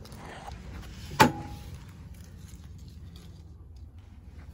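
Packaging being handled during an unboxing: faint rustling and small ticks, with one sharp clack about a second in that leaves a brief ringing tone.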